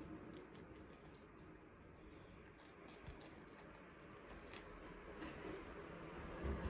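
Guinea pigs chewing and crunching their snack: faint, irregular small clicks and crunches.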